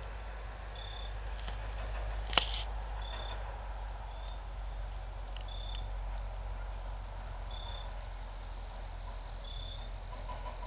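Evening outdoor ambience: a steady low rumble with short, high chirps from a small animal every second or two, and one sharp click about two and a half seconds in.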